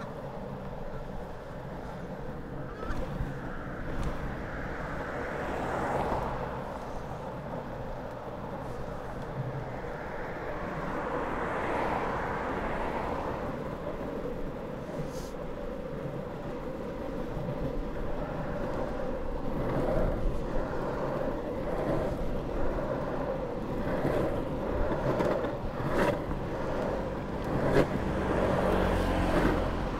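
Longboard wheels rolling on a tarmac footpath, a steady rolling rumble that grows louder in the second half, mixed with road traffic passing alongside. A few sharp clicks come through in the later seconds.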